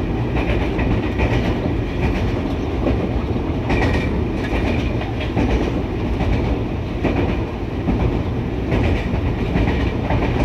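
Inside the cab of a ZCU-20 diesel-electric locomotive running along the track: a steady engine and running noise with the wheels clicking now and then over rail joints.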